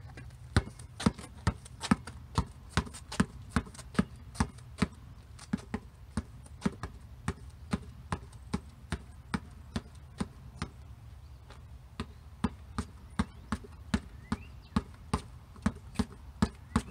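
A basketball bouncing on a concrete driveway in a steady walking dribble, between the legs, about two bounces a second. The bounces grow softer toward the middle as the ball moves away and louder again near the end, with a break of about a second and a half just past the middle.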